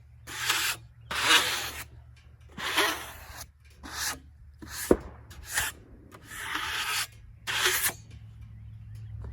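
A run of about nine irregular rubbing or scraping strokes, each under a second long, over a low steady hum, with one sharp click about five seconds in.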